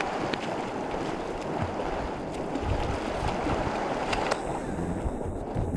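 Steady rush of river water, with the splashing of a swimmer's front-crawl strokes.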